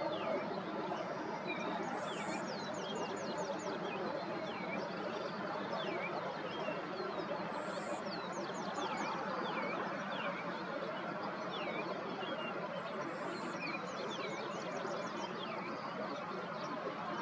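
Several songbirds singing and calling over a steady background hiss. One bird repeats a song about every six seconds: a high note followed by a quick run of falling notes. Other birds give scattered short chirps between the songs.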